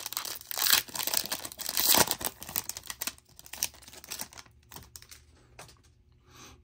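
A foil trading-card pack wrapper being torn open and crinkled, dense crackling for about three seconds, then softer scattered crinkles and clicks as it is handled.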